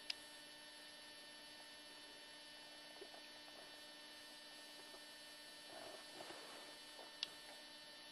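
Near silence with a faint steady electrical hum made of several constant tones. Two faint clicks come through, one just after the start and one about seven seconds in.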